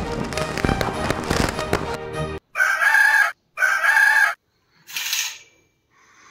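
Loud music with many sharp cracks stops abruptly about two and a half seconds in. A rooster then crows in two loud stretches with hard silent breaks, followed by a short fainter high call.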